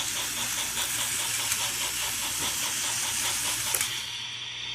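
Small battery-powered electric motors of remote-control Thomas toy train engines whirring along plastic track, with a fast, regular clicking from the drive. It eases off briefly about four seconds in.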